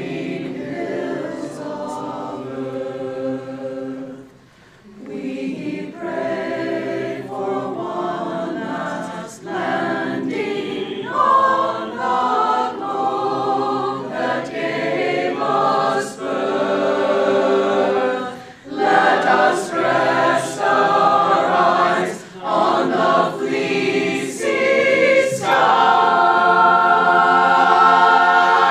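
Mixed four-part choir singing a cappella, with brief breaks between phrases. It swells into a loud held chord over the last few seconds, which is cut off sharply.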